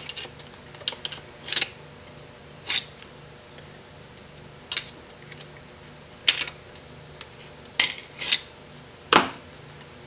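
Small metal parts and hand tools clinking and scraping while a Chrysler 727 transmission valve body is taken apart: about nine short, irregular knocks and scrapes over a steady low hum.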